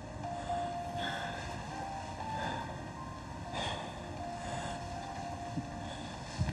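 Escalator running: a steady low mechanical drone with faint high tones coming and going. A short low thump near the end.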